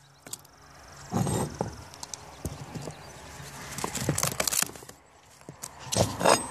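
Rotten, water-soaked plywood deck core being pried and torn up by hand: irregular cracks, scrapes and knocks of wood, with louder bursts of tearing about a second in, around four seconds and near the end.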